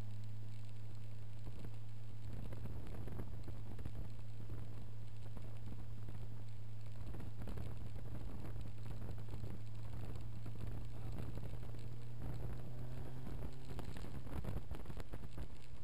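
Caterham R500 sports car driving at a steady pace: an even low engine drone with wind buffeting and crackling on the microphone of the open cockpit.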